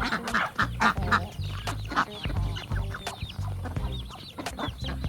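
Ducks quacking, many short calls one after another, with high thin peeping among them.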